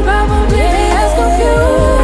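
Background pop song: a sung vocal line gliding between held notes over a deep, booming kick drum that hits about twice a second.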